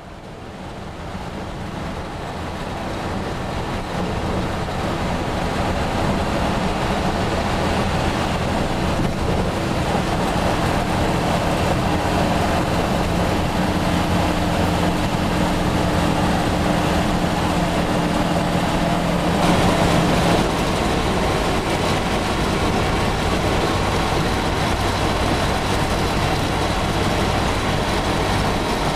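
Cab noise of a 1960 Austin LD light truck on the move: the engine running steadily under way, mixed with road and wind noise. It fades in at the start and changes character abruptly about two-thirds of the way through.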